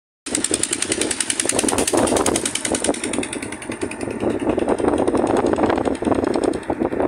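Engine of a moving road vehicle running steadily with a rapid pulsing beat, heard from on board as it drives along. The sound cuts in a moment after the start.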